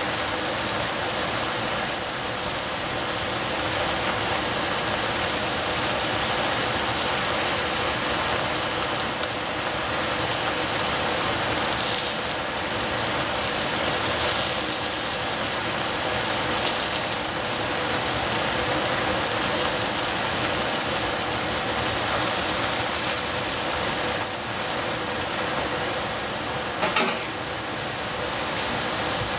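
Shiitake mushrooms and Chinese baby cabbage sizzling in a pan on the stove, a steady hiss, with one short knock near the end.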